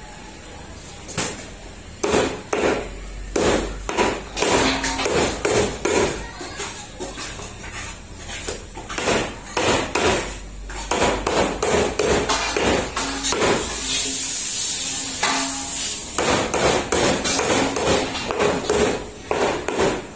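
Meat cleaver chopping bone-in chicken on a thick round wooden chopping block: a long run of sharp, heavy chops, irregular, about two to three a second.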